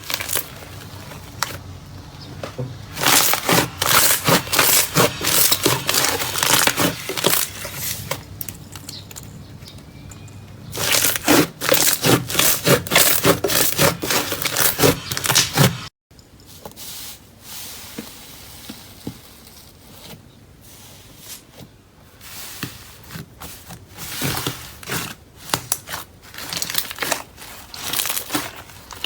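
Crunchy slime being squeezed and pressed by hand, crackling and popping in dense runs of small clicks with quieter stretches between. The sound breaks off for a moment about halfway through and starts again.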